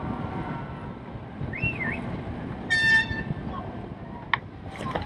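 A horn toots once, briefly, about three seconds in, over a steady rush of wind and water noise.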